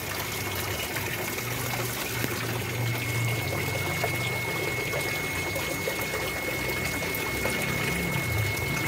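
Water pouring and splashing steadily into a fish pond. A low hum and a thin, steady high whine run under it.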